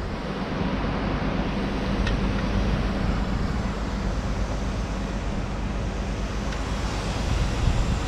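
A steady, low engine running, mixed with wind noise on the microphone.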